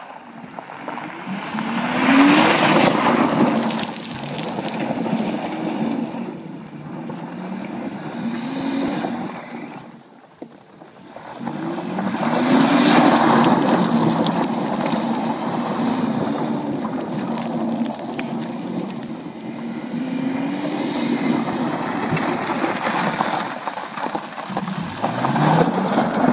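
BMW E46's 2.8-litre straight-six revving up and falling back over and over as the car drifts on gravel, with the tyres spinning on loose stones. The sound drops away briefly about ten seconds in, then the revving picks up again.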